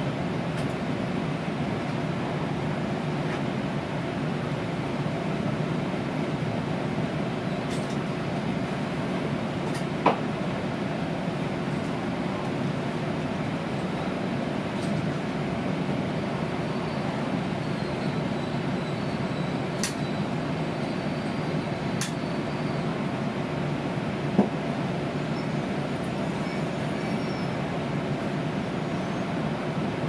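Steady running rumble and hum of an E2 series Shinkansen train, heard inside the car. A sharp click comes about ten seconds in and another about twenty-four seconds in.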